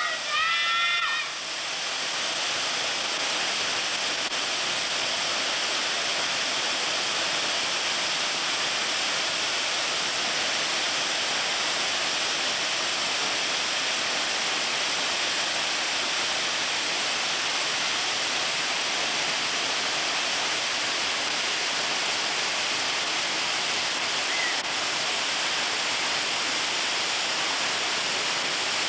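Chadwick Falls, a tall waterfall, pouring down a rock face into a pool: a steady, even rush of falling water. A brief high voice sounds in the first second.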